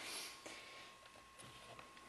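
Near silence: faint room hiss with a thin steady whine and a few soft ticks.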